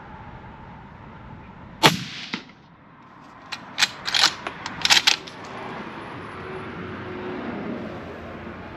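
A single loud rifle shot from a Ruger Precision Rifle about two seconds in, with a weaker echo-like crack half a second later. It is followed by a quick run of sharp metallic clicks, the bolt being worked to chamber the next round.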